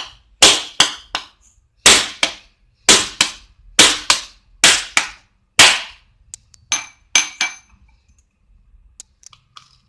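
A steel rod strikes the hard shell of a wood apple again and again to crack it open: about a dozen sharp knocks, mostly in quick pairs, over the first six seconds. Lighter clicks and taps follow as the cracked shell is handled.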